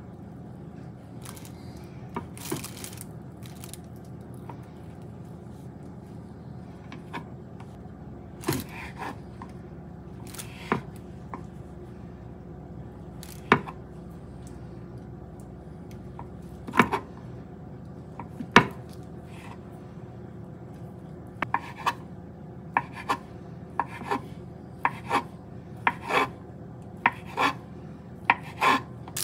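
Kitchen knife slicing and dicing a block of Spam on a wooden cutting board. The blade knocks on the wood now and then, and in the last several seconds the knocks come faster, about one or two a second, as the slices are diced.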